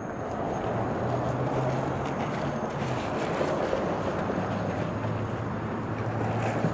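Road traffic: a steady rush of passing vehicles with a low engine hum.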